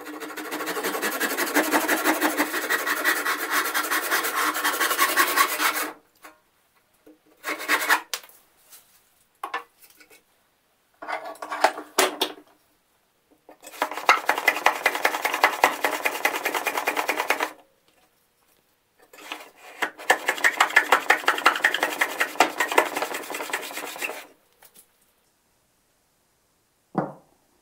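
Handsaw cutting through a pear-wood blank in steady, rapid strokes for about six seconds, followed by a few short bursts of work. A hand plane then shaves the blank on a shooting board in two long runs of strokes. Near the end comes a single short knock of wood set down on a bench.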